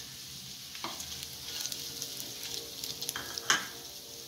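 Oil sizzling steadily in a steel pan as coarsely crushed peanuts are tipped into frying dates and green chillies and stirred in, with a few sharp knocks from the stirring, the loudest about three and a half seconds in.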